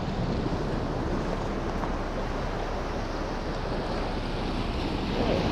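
Ocean surf washing steadily against a rock shoreline, with wind rumbling on the microphone.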